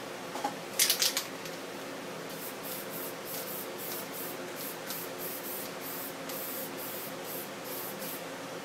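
Aerosol spray paint can spraying: a few loud hissing bursts about a second in, then a run of short quick spurts, nearly three a second, until near the end.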